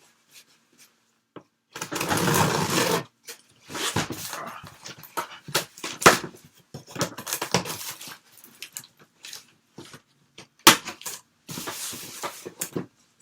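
Cardboard shipping box being opened by hand: irregular bursts of scraping and tearing, with a few sharp knocks.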